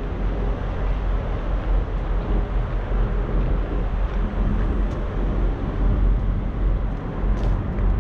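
Semi truck's diesel engine running as the truck rolls slowly, a steady low hum with road and wind noise over it.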